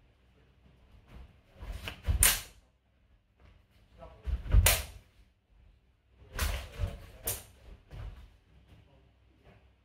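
A short rapier and a spadroon clashing in a fencing bout, mixed with fencers' footfalls and stamps on foam mats. There are four flurries of sharp knocks, the loudest about two seconds in, four and a half seconds in, and a double hit at six and a half to seven seconds.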